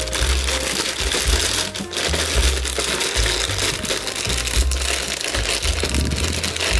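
Background music with a steady bass line, over the crinkling of plastic bags as a plastic model kit's parts bags are packed back into the box.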